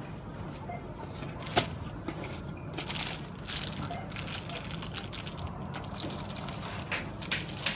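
Supermarket background noise: a steady low hum with scattered clicks and crackles, one sharp click about a second and a half in.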